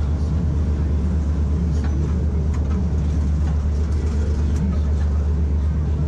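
Steady low drone of a river passenger boat's engine under way, with a rapid, even throb.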